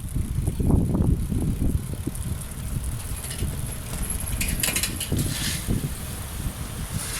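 Strong wind buffeting the microphone of a camera on a moving bicycle: an uneven low rumble that is strongest in the first second or so. About four to five seconds in comes a short burst of high rattling clicks.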